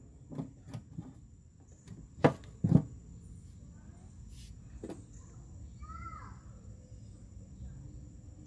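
Scattered clicks and knocks of tools and parts being handled, two louder knocks about two and a half seconds in, and a brief faint chirp near six seconds.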